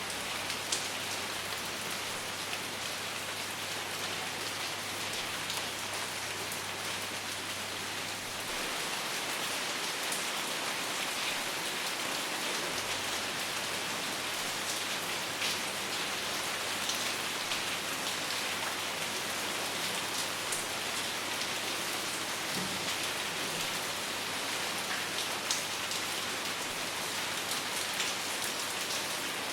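Steady rain falling, with individual drops ticking sharply here and there over the continuous hiss; no thunder.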